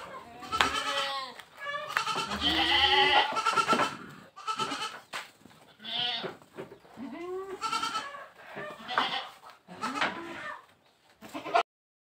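Goats bleating repeatedly, a series of wavering calls one after another; the sound cuts off suddenly near the end.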